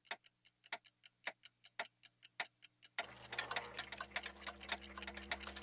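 Clockwork ticking in a steady rhythm of several sharp ticks a second. About three seconds in, more overlapping ticking and a low steady hum join in, and the sound grows busier and louder.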